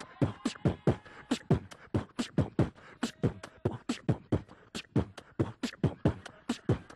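Beatboxing into a handheld microphone: a steady hip-hop beat of mouth-made kick and snare sounds, about four hits a second, played over the PA as a dance beat.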